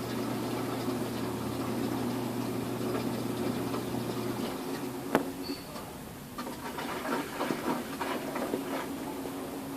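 Samsung washing machine with duvets inside, working through its drain and spin: a steady motor hum stops about halfway in, a sharp click follows, then irregular light knocks and rattles.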